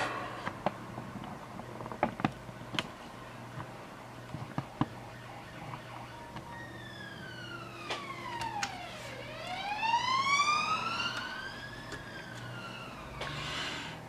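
Emergency vehicle siren wailing, starting about six seconds in: its pitch falls, rises, then falls again. Before it come a few light clicks and taps from hands working inside an opened laptop.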